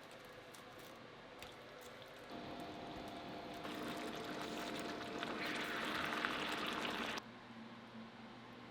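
Liquid cooking sound from the pan of thickened stir-fry sauce, growing louder over several seconds with a steady hum beneath, then cutting off suddenly.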